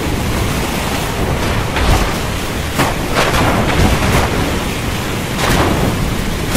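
Thunderstorm: a loud, steady rush of rain and wind, broken by several sharp cracks of thunder.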